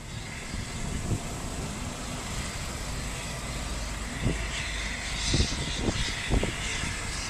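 Steam-hauled passenger train in the station: a steady low rumble of the coaches, growing slightly louder. A few short low thumps come in the second half, and a hiss rises about five seconds in.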